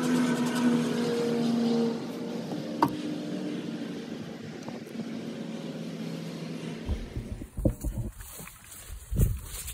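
Honeybees buzzing over an open hive, a steady hum with a couple of held pitches that drops in level about two seconds in. A single sharp knock comes about three seconds in, and from about seven seconds low thumps and rumble from wind or handling.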